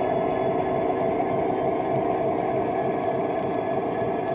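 OO gauge model Class 66 diesel locomotive's DCC sound decoder playing a steady two-stroke V12 diesel engine note through its small onboard speaker, with a few faint clicks.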